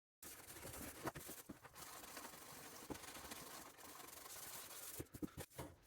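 Faint rubbing on the filled and sanded car wing panel, with a few light taps and clicks.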